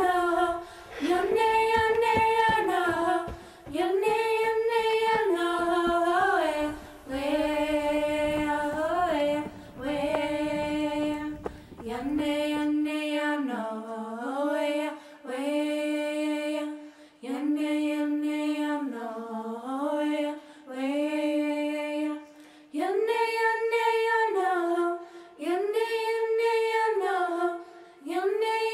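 A female voice singing unaccompanied, a slow melody in repeated phrases of two to three seconds, each ending on a step down in pitch, with short breaths between them.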